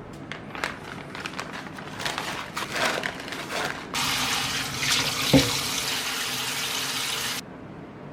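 Water splashing and things being handled in a sink, then a tap running steadily for about three and a half seconds, with one knock partway through, before it is shut off suddenly.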